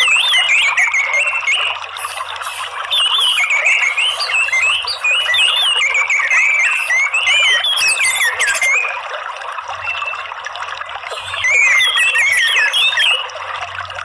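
Orange-headed thrush singing a busy stream of quick, warbling whistled phrases over a steady hiss of trickling water. The song breaks off briefly about two-thirds of the way through, then resumes.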